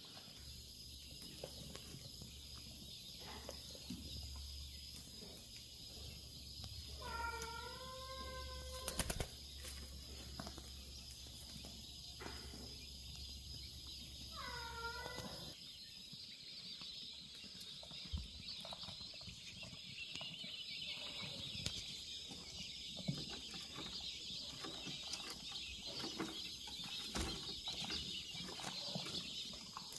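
Quail giving two short wavering calls, about seven and fourteen seconds in, with a brief rattle of clicks near nine seconds and scattered soft taps later. Under them runs a steady high hiss, and a low hum that stops about halfway through.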